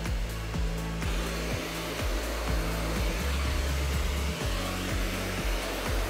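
Upright vacuum cleaner running steadily, a continuous motor hiss, over background music with a low bass line and a steady beat.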